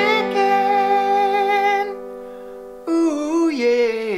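Closing theme music: long held notes, a short break about two seconds in, then a last held note that wavers.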